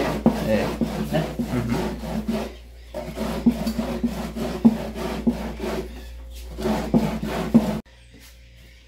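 Ears of fresh green corn being grated by hand on a metal grater: quick rasping strokes, with a short lull about two and a half seconds in, ending abruptly near the end.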